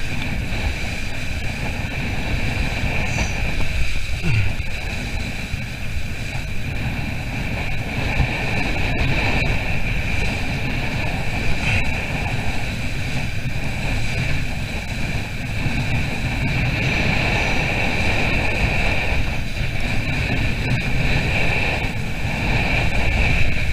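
Wind rumbling steadily on the microphone over the rush and splash of water along the hull of a small sailing boat under way, with spray coming over the bow.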